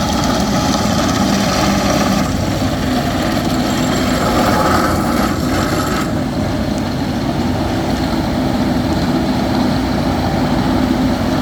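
Heavy diesel construction machinery running steadily with a deep drone; a layer of higher-pitched mechanical noise drops away about six seconds in.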